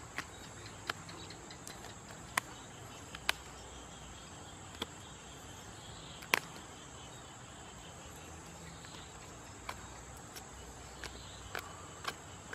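A duck being plucked by hand, with sharp irregular clicks as feathers are pulled out, the loudest about six seconds in. A steady high insect drone runs underneath.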